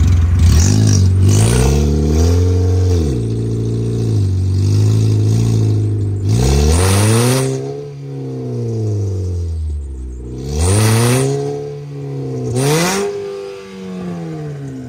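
Ford Fusion's engine revved hard four times, each rev climbing, holding briefly and falling back toward idle. The engine is running with Prime energy drink in its oil.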